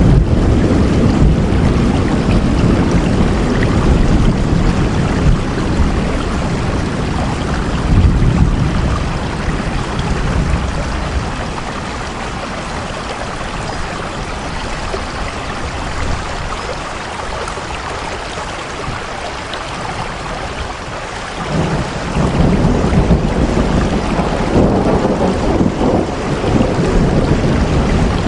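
Steady heavy rain with a deep low rumble underneath; the rumble eases in the middle and comes back suddenly about three quarters of the way through.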